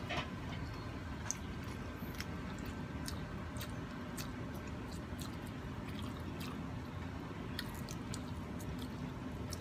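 Close-up eating sounds: wet chewing and squishing, with scattered small clicks and cracks as a cooked prawn's shell is pulled apart by hand, over a steady low hum.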